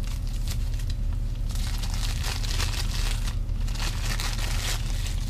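Plastic packaging and bubble wrap crinkling and rustling in several bouts as it is pulled off a camera by hand, over a steady low hum.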